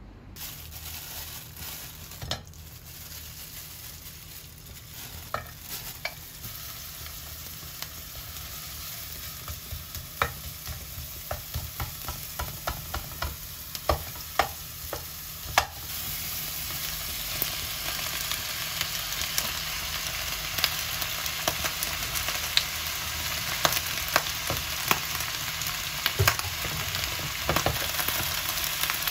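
Minced garlic sizzling in oil in a nonstick frying pan, stirred with a wooden spoon that knocks against the pan now and then. From about halfway through the sizzle is louder, as torn cabbage leaves fry in the pan.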